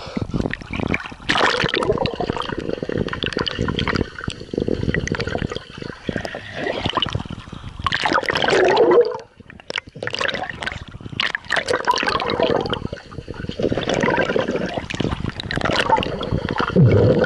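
Pool water splashing and gurgling around a swimmer's strokes, picked up by an action camera inside its waterproof housing as it dips in and out of the surface. The splashing drops away briefly about nine seconds in, then picks up again.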